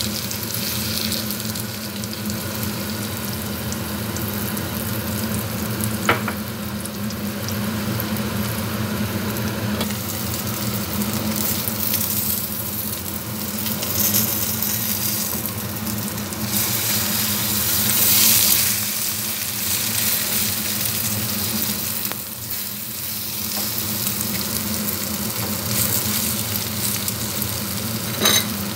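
Beaten eggs frying over pan-fried potato sticks and green peppers in a shallow metal pan: a steady sizzle of hot oil throughout, with a sharp click about six seconds in and another near the end.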